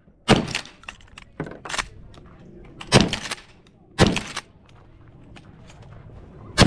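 Shotgun shots: loud single reports at irregular intervals, with fainter knocks between them.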